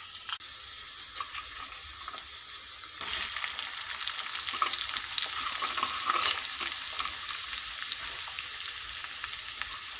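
Chopped garlic, then onion, sizzling and crackling in hot oil in a kadhai; the sizzle gets louder about three seconds in.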